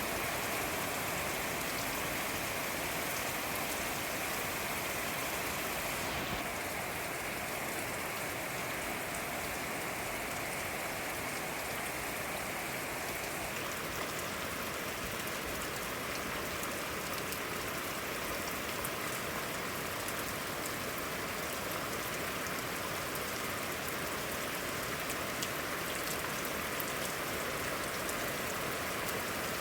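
Steady rain falling and pattering on surfaces, an even hiss with scattered fine drop ticks. Its tone changes slightly about six seconds in and again about halfway.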